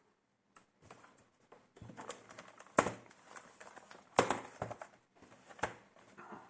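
Hand-handling of laptop parts: sharp plastic-and-metal clicks and knocks, three of them loud and about a second and a half apart, with lighter taps and rustling between.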